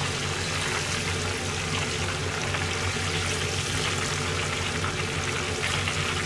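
Hot oil sizzling steadily around coated chicken pieces deep-frying in a pan, with the pieces being turned and lifted out with chopsticks as they finish.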